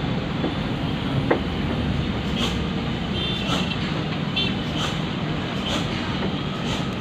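Tour bus driving, its engine and road noise running steadily, with faint ticks about once a second and a few short high beeps.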